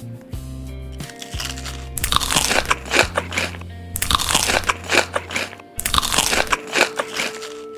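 Close-up crunching as someone bites and chews crisp food, in runs of crackly bites starting about two seconds in, over background music.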